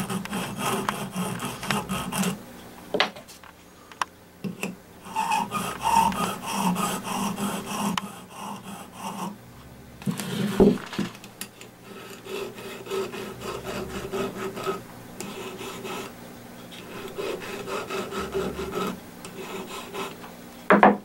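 Hand file and sharpening stone rubbing back and forth over a small steel Ruger Mark IV trigger part in a run of rasping strokes with short pauses, taking off about two thousandths of an inch so the disconnector bar has clearance to reset. A few sharp metal clicks come in between, the loudest about halfway through.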